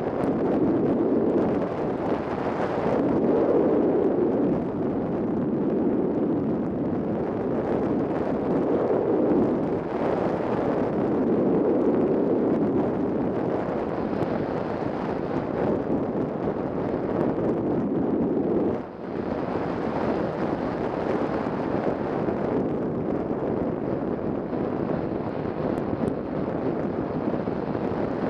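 Airflow rushing over the onboard camera's microphone on a large model glider in flight: a steady wind rush, dipping briefly about two-thirds of the way through.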